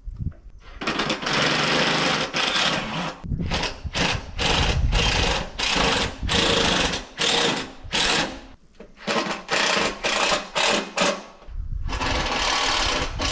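Power drill driving fasteners in a pergola frame, run in a long pull of the trigger, then many short bursts, then another long run near the end.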